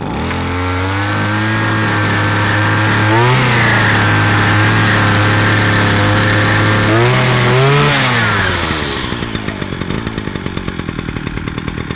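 A BCH 400T brushcutter's small two-stroke petrol engine catches on a pull of the starter rope and runs at a raised idle. It revs higher about three seconds in and briefly again near eight seconds, then drops to a pulsing idle about nine seconds in as the latched throttle is released.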